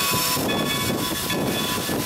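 Steam locomotive running, heard from inside its cab: a steady rushing noise with thin, high tones held over it.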